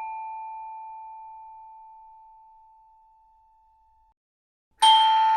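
Doorbell chime ringing out, its held tones fading slowly to silence over about four seconds. Near the end a new chime is struck, a sudden bright ding.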